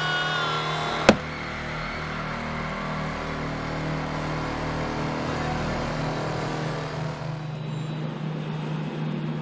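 A steady low droning ambience with a constant hum, broken by one sharp click about a second in.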